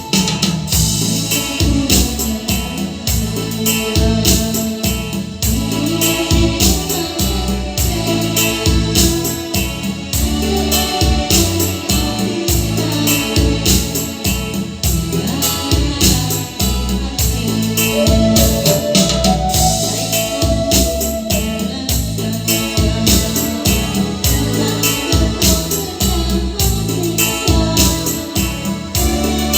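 Music played on electric keyboard or organ over a steady, driving beat with a strong bass line.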